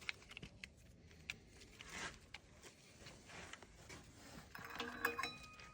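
Faint, scattered clicks and light knocks of hands handling parts, fitting the cover back over the tractor's hydraulic coupler, with a short pitched squeak near the end.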